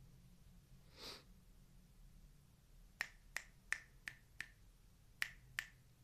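Finger snaps, five in quick succession at about three a second, then a short pause and two more. A short soft hiss comes about a second in, before the snaps.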